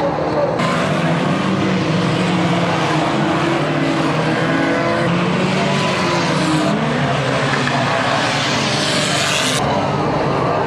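Engines of several pre-1970 classic banger racing cars revving hard together in a continuous loud, wavering din. The sound changes abruptly a few times.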